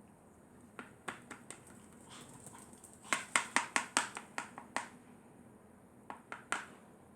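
Spoon clicking and tapping against a glue container while scooping out glue: a few scattered clicks, then a quick run of about a dozen sharp clicks around the middle, and a few more near the end.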